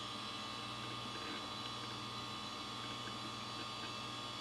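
Steady low electrical hum with fainter steady higher tones from running computer equipment, unchanging throughout.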